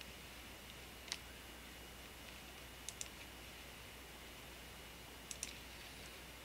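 Computer mouse buttons clicking over a faint steady hum: a single click about a second in, then two quick double clicks, one near the middle and one near the end.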